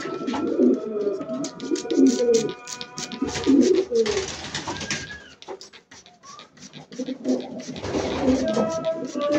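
Domestic pigeons cooing in a loft, several overlapping coos. They stop for a moment about five seconds in and start again near the end.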